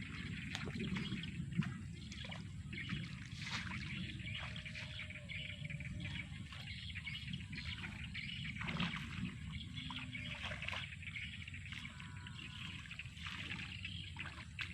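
Water trickling and splashing steadily, with faint bird chirps over a low outdoor rumble.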